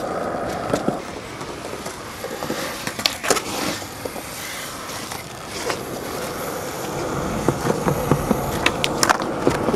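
Skateboard wheels rolling on concrete, with several sharp clacks of the board hitting the ground.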